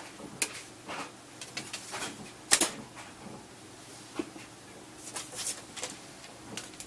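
Scattered light clicks and knocks from handling a fiberglass takedown recurve bow, one sharp click about two and a half seconds in being the loudest.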